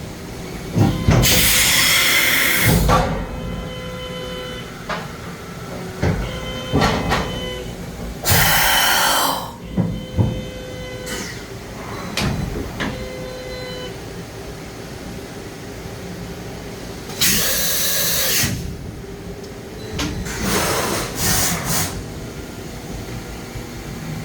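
DMG Mori NHX5500 horizontal machining center running through its motions: four loud hissing bursts, with clunks, clicks and short whines of machine moves in between.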